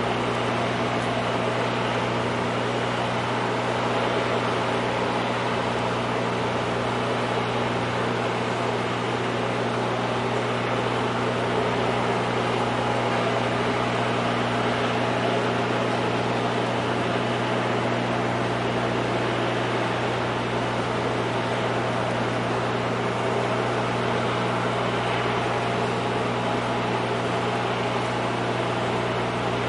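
Steady low engine drone under an even hiss, with no change in pitch or loudness.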